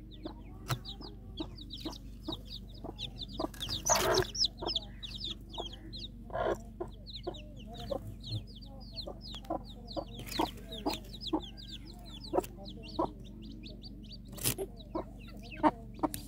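Newly hatched chicks peeping over and over in quick, high, falling notes, with a domestic hen's low clucking between them and a few short sharp knocks.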